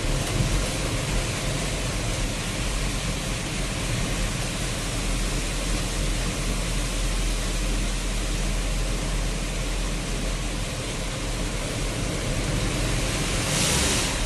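Steady rushing hiss of heavy rain with a low rumble underneath, and a brief louder hiss near the end.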